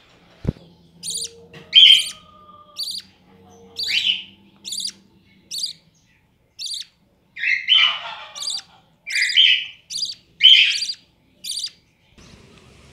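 Caged budgerigars and cockatiels and their nestlings chirping: a run of short, high chirps about two a second, with louder raspy calls mixed in, mostly in the second half. A single knock comes about half a second in.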